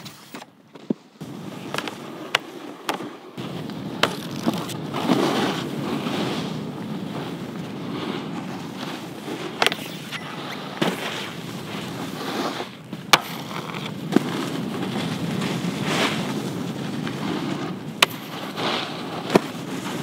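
Snowboard sliding and carving over packed snow, a steady scraping hiss that swells and eases with each turn, with occasional sharp clicks.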